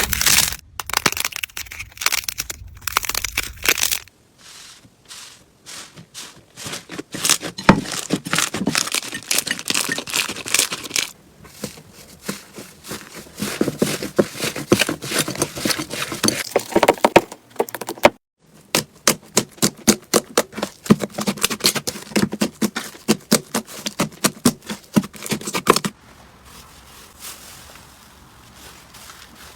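Hands working slime: dense runs of crackling, crinkling and popping clicks as it is squeezed and pressed. The texture changes abruptly every several seconds, with a quieter spell near the start and a softer one near the end.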